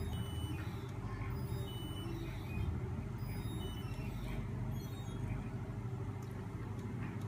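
A homemade magnet-motor rig running, driven by a small 12 V DC starter motor, with shafts carrying stacks of neodymium magnets and a flywheel spinning fast. It makes a steady whirring hum, with brief high squeaks now and then.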